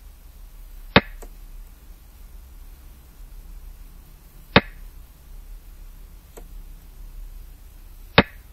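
Xiangqi game-replay sound effect: a sharp click each time a piece is placed on the board, three times about three and a half seconds apart, with a couple of fainter ticks in between.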